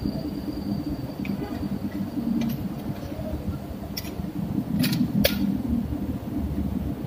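A tripod's legs clicking and knocking as it is handled and turned, about five sharp clacks, two close together near the end. A steady low rumble runs underneath.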